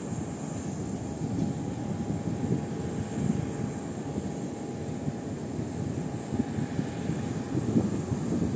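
Jet airliner engine noise: a steady low rush with a faint, steady whine above it.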